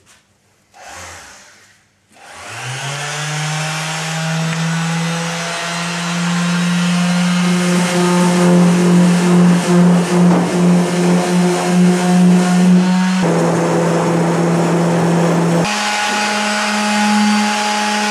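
Electric orbital sheet sander starting up about two seconds in, its motor whine rising quickly and then running steadily as it sands wood. The pitch drops for a few seconds near the end, then climbs again.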